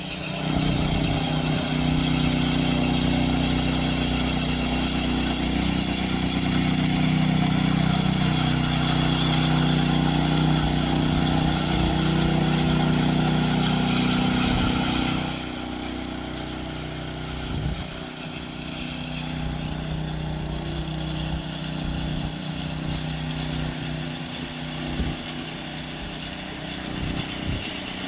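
An engine running steadily and hard, easing to a lower, quieter running about fifteen seconds in, with a few knocks after that.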